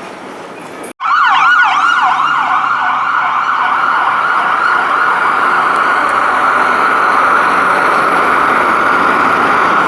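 Electronic emergency-vehicle siren on a city street, loud and close, wailing in a rapid yelp that sweeps up and down about six times a second and then runs on as a fast, steady warble. It starts abruptly about a second in.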